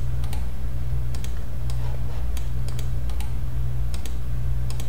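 Computer keyboard keys and mouse buttons clicking in scattered, irregular taps during text editing, over a steady low hum.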